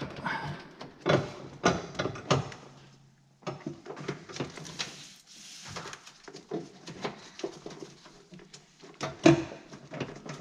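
Irregular clicks, knocks and rustling as a clutch master cylinder is worked loose by hand, its hydraulic line still attached, with a sharper knock about nine seconds in.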